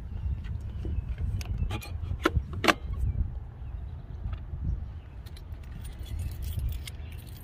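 Keys jangling and clinking: a few sharp clinks in the first three seconds and a quicker run of small clicks near the end, over a low steady rumble.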